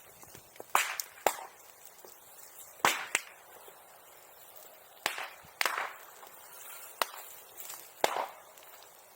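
Bonfire crackling, with about eight sharp, firecracker-like pops and cracks at irregular intervals.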